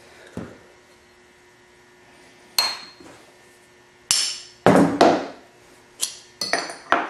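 Hammer striking a steel punch to drive old rivets out of a steel AK rear trunnion: a series of sharp metallic strikes at uneven spacing, most of them in the second half.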